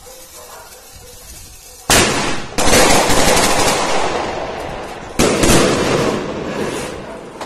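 A dense string of rapid bangs breaks out about two seconds in and swells again a moment later, then a second string starts a little past five seconds; each trails off over a couple of seconds.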